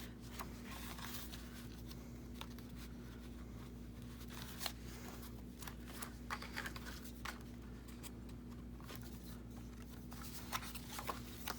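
Paper pieces being handled and shifted about: faint scattered rustles and light taps of paper and card, over a faint steady hum.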